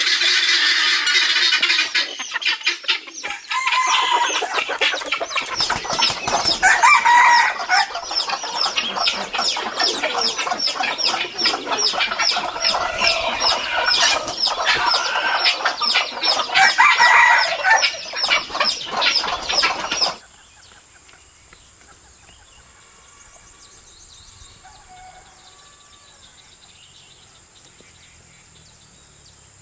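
A flock of chickens clucking and flapping their wings, with roosters crowing twice, about seven and seventeen seconds in. About twenty seconds in the sound cuts off suddenly to a faint, steady insect buzz.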